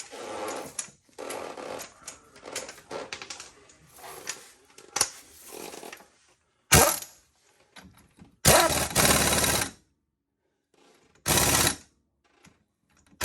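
Metal parts rubbed and clinked while being fitted, then a power tool run in four short bursts of rapid hammering, the longest a little over a second: an impact wrench driving fasteners on the rear axle assembly of a Polaris Ranger 800 UTV.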